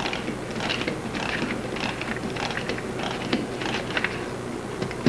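Ratchet clicks of an Ansonia 8-day time-and-strike clock movement as its mainspring is wound up all the way with a hand winder on the winding arbor: the click pawl snaps over the ratchet-wheel teeth in small bursts about twice a second.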